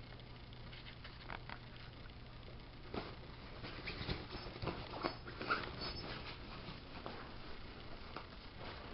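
Faint scattered rustles and soft taps from a cat moving about on carpet by a nylon play tunnel, busiest in the middle, over a low steady hum.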